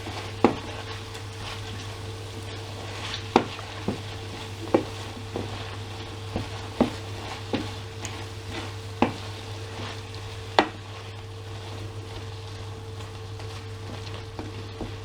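Chicken livers, onions and bacon sizzling in a frying pan while being stirred, with the utensil knocking against the pan a dozen or so times at irregular intervals. A steady low hum runs underneath.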